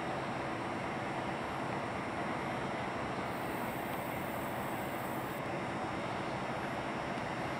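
EMD SW1 switcher locomotive's diesel engine (a 567-C) running steadily as the locomotive and its passenger cars roll past, a constant drone.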